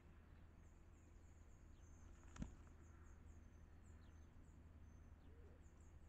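Near silence outdoors: faint, high, short bird chirps repeating at irregular intervals over a low steady hum, with a single sharp click about two and a half seconds in.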